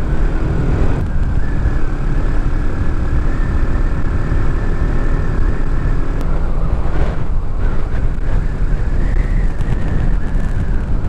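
Motorcycle engine running steadily at cruising speed, heard from the rider's own bike, with wind rushing over the microphone.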